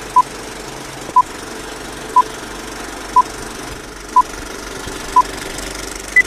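Vintage film-leader countdown sound effect: a short beep every second, six times, then one higher-pitched beep near the end, over a steady crackly hiss.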